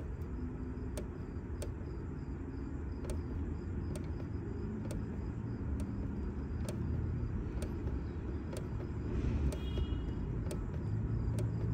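Steady low rumble with a small click about once a second as the Down button on an economizer controller's keypad is pressed repeatedly to scroll through menu settings.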